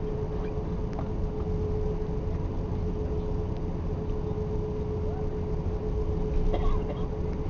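Cabin noise of an Airbus A340-600 taxiing: its four Rolls-Royce Trent 500 engines at low power give a steady low rumble with a constant hum. There are a few faint clicks and a brief louder noise near the end.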